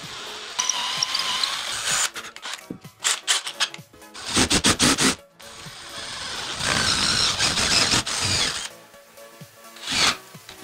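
A handheld power tool running in three bursts of one to two seconds each, with a faint whine, over background music.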